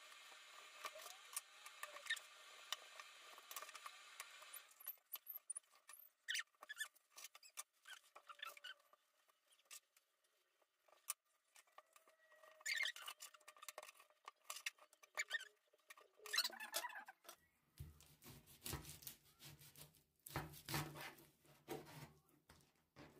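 Kitchen knife cutting up a whole raw chicken on a plastic cutting board: faint scattered clicks and snaps of the blade working through skin and joints, then near the end a run of louder knocks as the blade strikes the board. A faint steady hum runs for the first five seconds or so and then stops.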